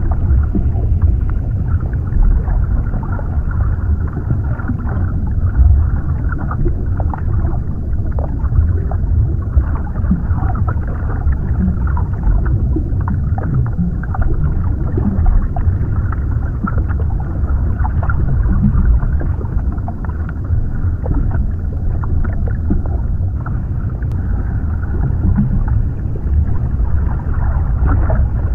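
Underwater ambience: a steady deep rumble of water with a bubbling, gurgling texture on top.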